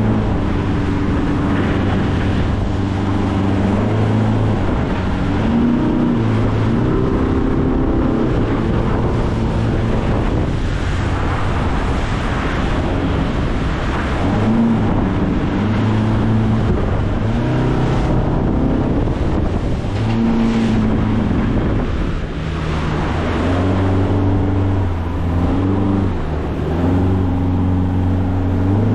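Baysport 600 Offshore boat's engine running under way, its pitch rising and falling again and again as the throttle is worked through breaking waves on a bar crossing, with wind and rushing water around the hull.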